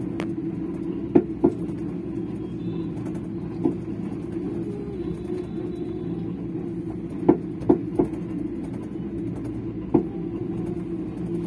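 Steady low hum of a ropeway cable car cabin running down its cable, with a few sharp clicks and knocks scattered through it.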